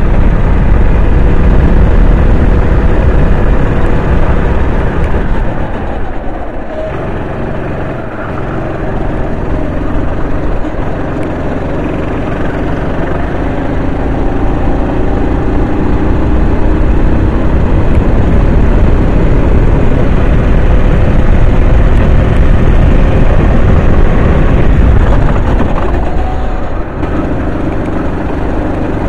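Racing kart engine running at speed over a heavy low rumble, with its note rising and falling through the lap. The engine note eases off about six seconds in as the kart slows, then climbs back as it accelerates, with a shorter lift near the end.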